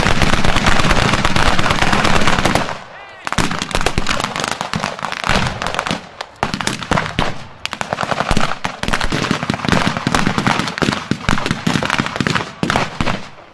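Rapid gunfire from WWII-era rifles and machine guns firing blanks: a long, dense stretch of rapid shots for the first few seconds, then repeated bursts and scattered single shots.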